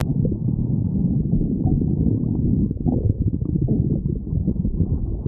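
A hungry human stomach growling: a continuous deep rumble, thick with rapid gurgling crackles, that goes on without a pause.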